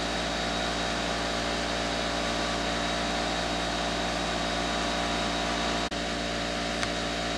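A steady mechanical hum with an even hiss and several steady tones from running workshop equipment. It breaks off for an instant about six seconds in.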